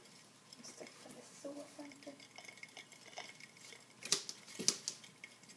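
Plastic hamster running disc spinning under a running dwarf hamster, with light irregular clicks and taps from the disc and the hamster's feet, and two sharper clacks about four seconds in.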